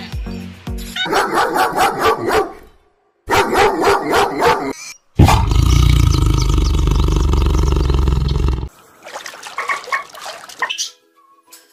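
Short clips of animal sounds cut one after another, with a dog barking and growling among them. A loud, low, unbroken sound fills about three seconds in the middle.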